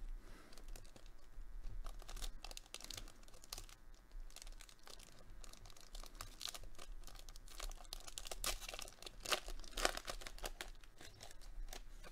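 A trading-card booster pack's plastic wrapper torn open and crinkled by hand: a run of irregular crackles and rips, loudest about nine to ten seconds in.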